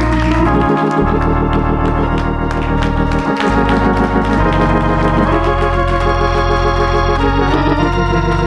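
Organ playing sustained chords that change every second or so, with hand clapping faintly underneath.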